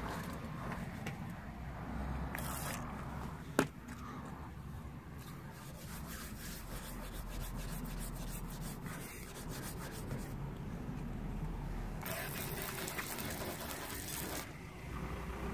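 A hand rubbing and scuffing over the rubbery matt Plasti Dip coating of a car door to lift grease marks. There is one sharp click about three and a half seconds in, and a steady low rumble underneath.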